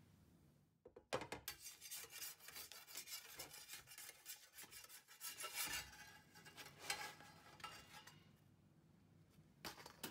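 Metal palette knife scraping under a naan on a steel tava, a rapid rasping of metal on metal as it works the bread loose. The scraping starts about a second in, dies down after about eight seconds, and comes once more briefly near the end.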